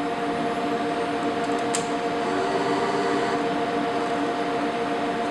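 IBM IntelliStation POWER 285 workstation's cooling fans running: a steady whir with a constant hum of several tones, its side panel closed.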